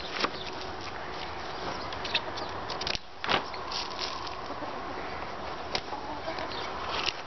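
Polythene sheeting crinkling and rustling as it is cut with scissors and then rolled around a timber batten, with short crackles throughout and a louder one about three seconds in.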